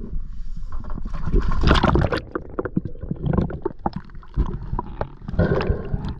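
A diver slipping over the side of a small boat into shallow water: a splash about two seconds in, then gurgling and knocks heard underwater.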